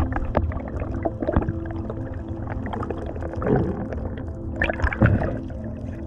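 Underwater gurgling and bubbling in irregular bursts over a steady low hum.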